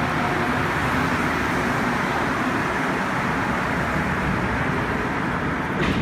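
Rubber-tyred MR-73 metro train pulling in along the platform and coming to a stop, a steady loud rush of tyre and running-gear noise with a few faint tones in it. A single sharp clunk near the end.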